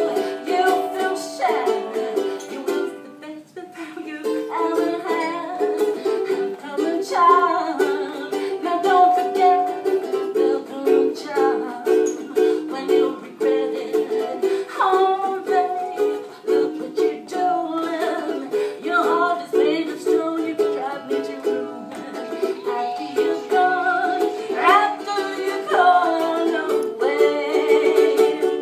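A woman singing to her own ukulele accompaniment.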